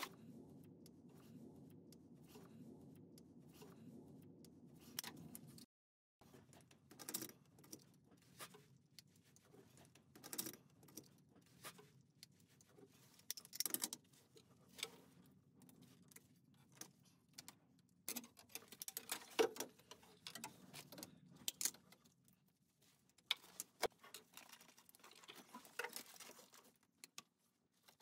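Scattered faint clicks, taps and small metal knocks of a PEX crimp tool and brass fittings being handled as PEX pipe is connected at the valve. A low steady hum under the first six seconds cuts off abruptly.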